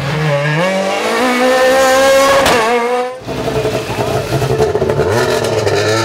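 Ford Fiesta rally car's engine revving hard as it accelerates past, rising in pitch for about two seconds. The sound breaks off suddenly about three seconds in. From about five seconds in an engine runs at a steady note.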